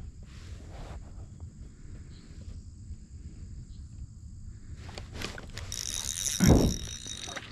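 Spinning reel cranked for nearly two seconds near the end, giving a high whirring as a hooked crappie is reeled in. A thump comes in the middle of the winding, with soft handling of rod and kayak before it.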